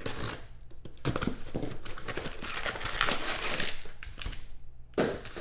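Plastic wrapping crinkling and rustling in the hands as a sealed box of trading cards is opened, with a quick patter of small crackles throughout.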